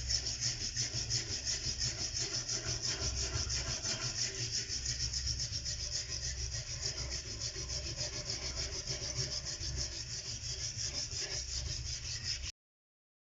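Rhythmic back-and-forth abrasive rubbing of a chisel being restored, about three strokes a second with a high scratchy hiss. It cuts off suddenly near the end.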